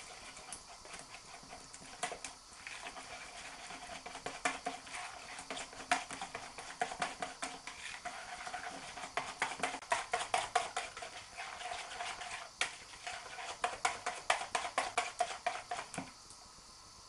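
Wire whisk beating a thin flour batter in a glass bowl: quick rhythmic strokes, several a second, with the wires clicking against the glass and the batter slapping. It stops suddenly about a second before the end.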